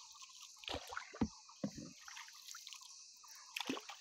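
Soft drips and small splashes of water around a rowed boat: a few short ones between about one and two seconds in, and one more near the end.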